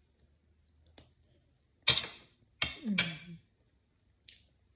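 Close-up mukbang eating sounds: a few sharp, crunchy bites into raw red bell pepper and chewing, about two to three and a half seconds in, with a short hummed 'mm' from the eater. A faint click about a second in.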